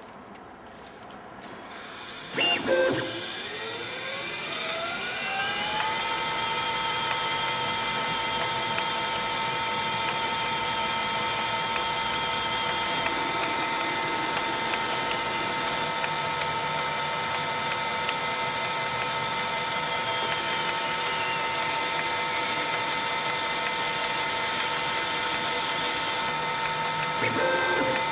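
CNC Myford ML7 lathe starting up. A motor whine rises in pitch over about four seconds, then the machine runs with a steady whine. A few clicks come about two seconds in and again near the end.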